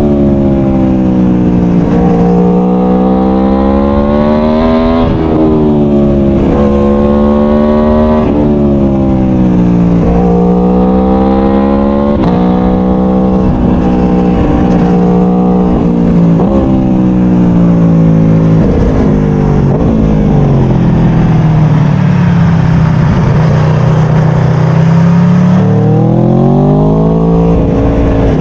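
Aprilia Tuono V4 1100's V4 engine under way, its revs rising again and again and dropping sharply between rises as the bike accelerates through the bends. In the second half it holds a steadier, lower note for several seconds, then climbs again near the end.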